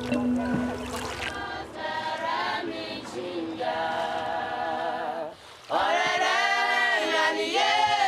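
A choir of voices singing without instruments, the melody wavering with vibrato. The singing drops away briefly about five seconds in, then comes back louder and fuller.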